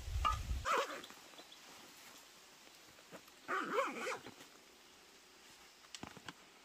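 Two animal calls, a short one in the first second and a longer, wavering one about three and a half seconds in. A low rumble stops in the first second, and a few light clicks come near the end.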